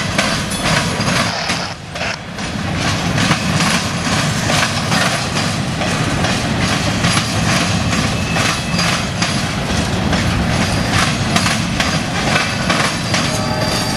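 Freight cars' steel wheels clattering over a railroad diamond crossing, a fast, uneven run of sharp clicks and bangs over the steady rumble of the rolling train.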